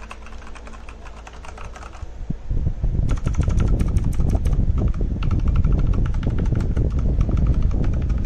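Outemu Brown mechanical keyboard switch being pressed over and over, giving rapid clacking keystrokes. About two and a half seconds in, a loud low rumble joins the clicks and keeps on, like wind or handling on the microphone.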